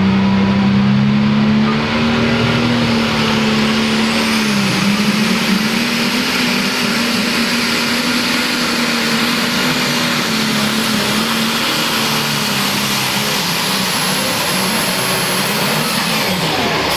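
International Harvester Super Stock pulling tractor's turbocharged engine at full throttle, dragging the weight sled down the track: a loud, steady engine note that dips briefly about four and a half seconds in. A high turbo whine climbs about four seconds in and holds.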